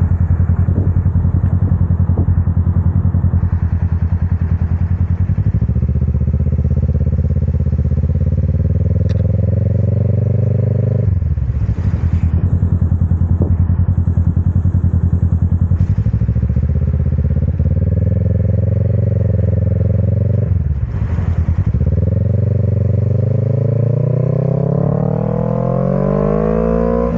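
Motorcycle engine running at low revs, then pulling away, its note climbing through the gears. The pitch drops sharply for a moment twice, about 11 and 21 seconds in, at the upshifts, and rises steadily near the end as the bike accelerates.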